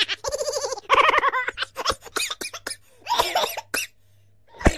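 Minions' high-pitched cartoon laughter: a string of quick giggles and cackles, dropping out about four seconds in, then a sharp click.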